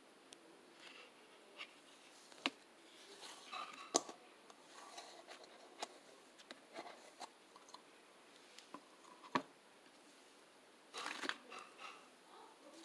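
Cloud slime being handled up close: scattered soft crackles, sharp clicks and short tearing or scraping bursts, with a denser cluster of crackling just after the 11-second mark.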